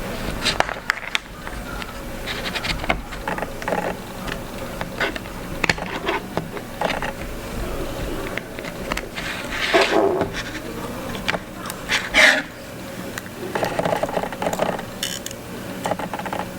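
Irregular clicks, taps and scraping from a small tool prying and working at an iPhone 5's battery and internals, over a faint steady hum.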